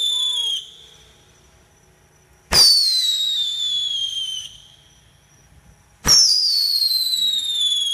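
Whistling fireworks. One shrill whistle ends early on, then two more follow, each starting suddenly and falling slowly in pitch for about two seconds.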